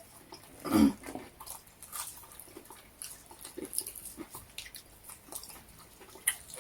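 Eating sounds: chewing and small mouth and food clicks, with one brief louder sound that falls in pitch about a second in.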